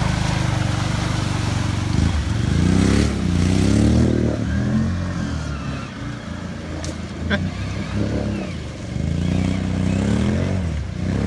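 Can-Am Outlander XMR 650 ATV's V-twin engine revving up and down again and again as it is driven through mud and water, easing off in the middle before climbing again.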